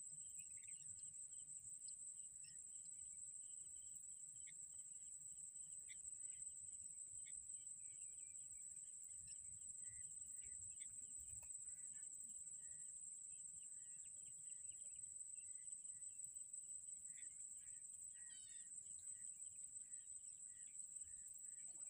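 A faint, steady, high-pitched insect drone with scattered short bird chirps, including a quick rapid trill about two-thirds of the way through.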